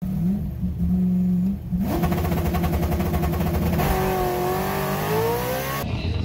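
LS-swapped third-generation F-body's V8, heard from inside the car on a drag-strip launch: a steady low idle, then about two seconds in the revs jump and the engine pulls hard under full throttle, its pitch climbing steadily through the gear. The sound cuts off suddenly near the end.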